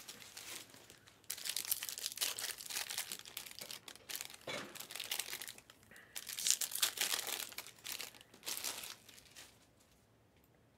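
Trading card pack wrappers crinkling and tearing as packs are ripped open and handled, in several rustling bursts that die away near the end.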